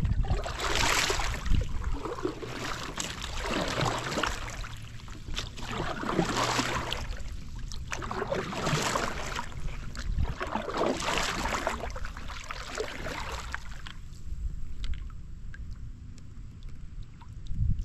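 Double-bladed kayak paddle stroking through calm lake water, a splashing swish every two seconds or so. The strokes stop a few seconds before the end, leaving soft water sounds.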